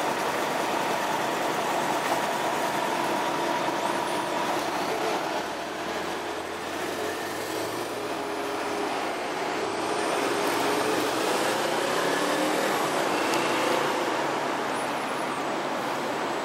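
Road traffic: cars and other vehicles driving past on a city street, a steady noise of engines and tyres whose engine pitches rise and fall as they pass.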